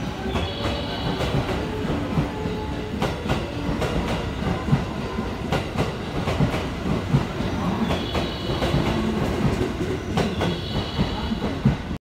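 JR West 223 series 1000 electric train pulling out of a station, its wheels clacking over rail joints and points in irregular pairs over a steady rolling rumble. High-pitched tones come and go, loudest at the start and again about eight and ten seconds in.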